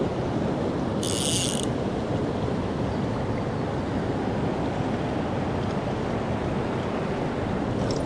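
Mountain stream water rushing steadily over rocks. About a second in comes a half-second burst of rapid clicking from a click-pawl fly reel's ratchet as line is pulled off.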